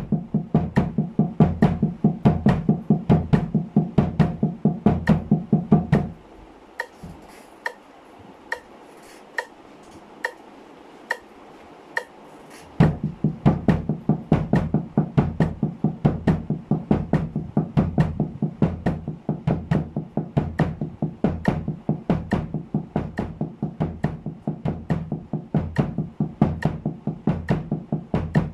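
Snare drum muffled by a towel, played with wooden sticks in a steady sixteenth-note double-stroke pattern at 70 bpm, with bass drum kicks on the last two sixteenths of each beat. About six seconds in the playing stops for roughly seven seconds, leaving only faint metronome ticks about twice a second, then starts again.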